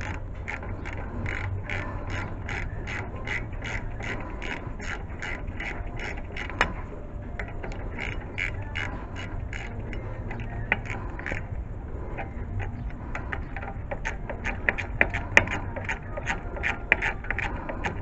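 Socket ratchet clicking steadily, about four to five clicks a second, as the front brake caliper bolts are backed out by hand after being broken loose. The clicking comes in three runs with short pauses between them.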